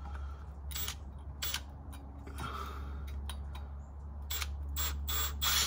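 A dozen or so irregular sharp clicks and short taps from hand tools being handled, with a drill and bit being set up to drill a small hole, over a steady low hum.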